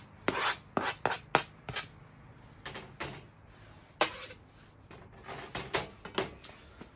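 Kitchen knife tapping and scraping chopped garlic off a plastic cutting board into a bowl, a quick run of clicks in the first two seconds, then a few scattered knocks as the board and knife are set down on the metal table.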